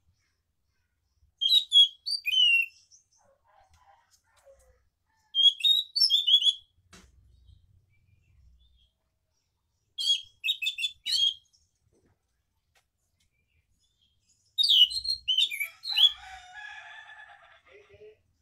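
Scaly thrush (anis macan) singing: four short bursts of quick, rolling high chirps, each about a second long and a few seconds apart. The last burst runs on into a quieter, lower twittering near the end.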